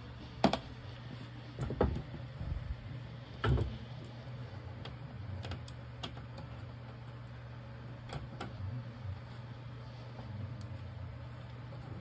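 Irregular knocks and clicks of things being handled, three louder ones in the first four seconds and lighter taps after, over a low steady hum.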